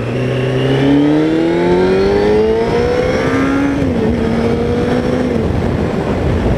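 Motorcycle engine accelerating, its pitch rising steadily. About four seconds in it drops briefly at a gear change, then holds steady, with wind rush over the noise.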